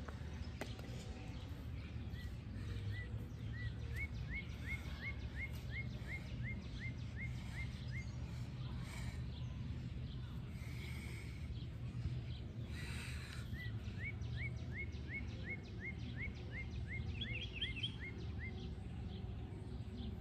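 A bird singing a run of short rising whistled notes, about two a second, then a second run a few seconds later, over a steady low outdoor rumble.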